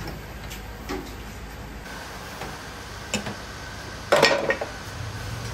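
Metal kitchenware clattering in a tamagoyaki shop: a few light knocks, then a louder short rattle of metal about four seconds in, over a steady low hum.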